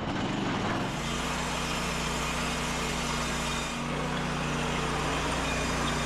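Gasoline engine of an EZ Boardwalk 40 bandsaw mill running, with the blade drive engaged. It picks up over the first second, then runs at a steady pitch.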